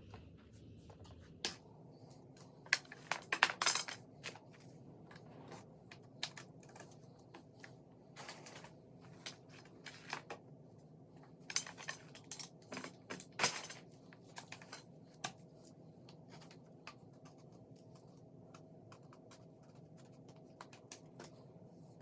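Scattered clicks and knocks of shoe-rack pipes being handled and pushed into their connectors during assembly, over a faint steady hum.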